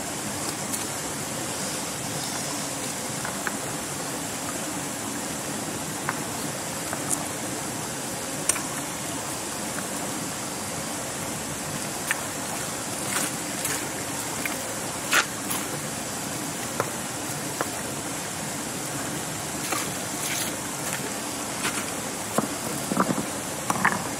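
Steady rushing noise with scattered sharp clicks and knocks, more of them in the second half and a quick cluster near the end.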